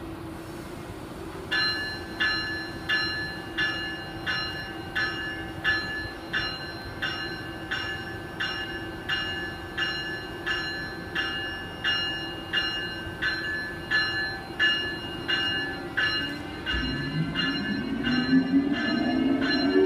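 An Amtrak ACS-64 electric locomotive's bell ringing steadily, about one and a half strikes a second, over a steady electrical hum as it prepares to depart. Near the end a rising whine sets in as the traction motors start to pull the train away.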